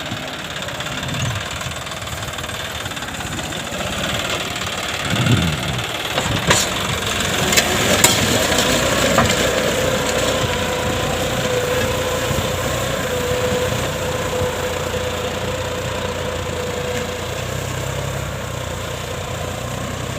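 John Deere 5050D tractor's three-cylinder turbo diesel running steadily while plowing straw stubble, with a thin steady whine that comes in about eight seconds in and a few sharp clacks a little before it.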